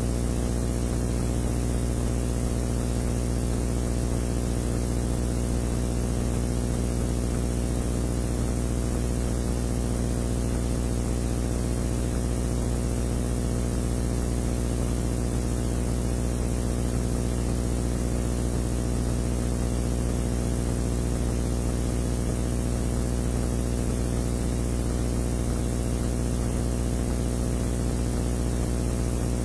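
Steady low hum made of several even tones under a light hiss, unchanging throughout.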